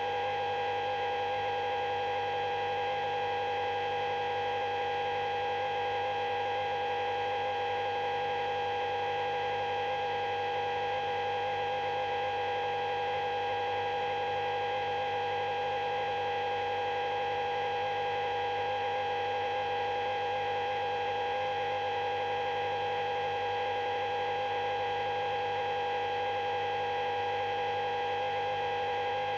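A steady, unchanging hum made of several held tones sounding together, one middle tone the loudest.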